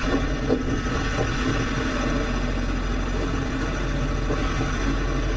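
An engine running steadily, a constant low drone, with a few faint knocks in the first second.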